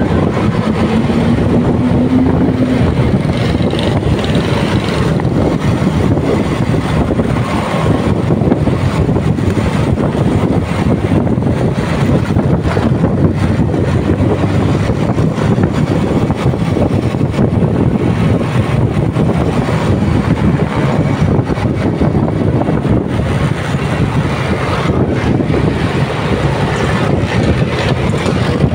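Wind buffeting the microphone on a moving motorcycle, over the steady rumble of its engine and road noise, with a short rising whine about two seconds in.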